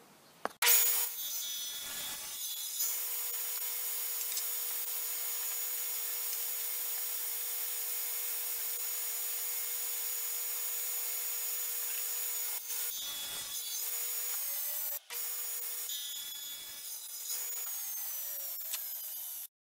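Table saw running steadily as ash leg blanks are pushed through the blade in a tenoning jig to cut tenons, with two brief dips in the sound. It starts abruptly and cuts off suddenly near the end.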